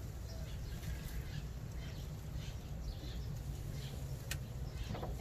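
Outdoor background: a steady low rumble with faint, scattered bird chirps, and one sharp click a little past four seconds in.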